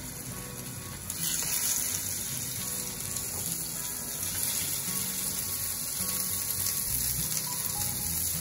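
Sea trout fillets searing in hot olive oil in a non-stick pan: a steady sizzle that grows louder about a second in and then holds.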